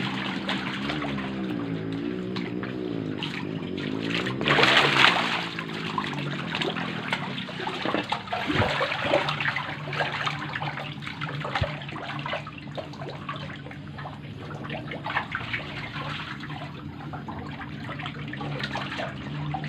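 Water sloshing and splashing in a concrete tank as a dense crowd of catfish thrash at the surface, over a steady trickling of water. There is a louder surge of splashing about five seconds in.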